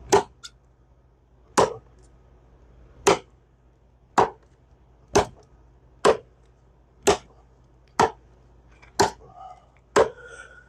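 Hand-forged axe chopping into wood: ten sharp blows, about a second and a half apart at first, then a little quicker, about one a second.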